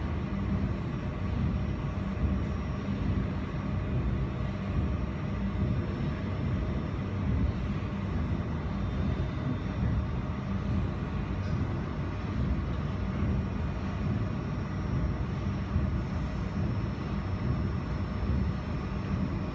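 Steady hum of a jewelry laser welding machine and its water chiller's fan running while powered on and idle, with no welding pulses.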